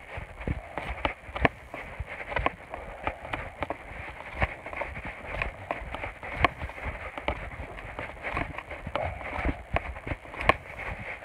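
Footsteps walking through dry grass and scrub: irregular steps, about one or two a second, over a steady rustle of grass against legs and the phone.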